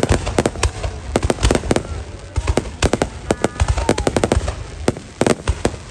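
Aerial fireworks bursting in rapid, irregular succession: a dense run of sharp bangs and crackles, several a second.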